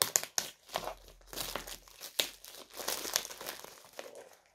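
Clear plastic shrink-wrap crinkling and tearing as it is peeled off a cardboard camera box, in a rapid, irregular run of crackles.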